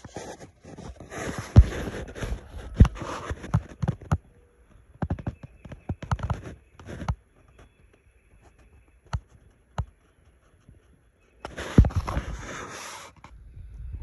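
Irregular footsteps crunching on dry leaves and fallen twigs, with sharp clicks and rustles. They come in a few short bursts separated by quieter stretches, with one near-silent gap holding only a couple of isolated clicks.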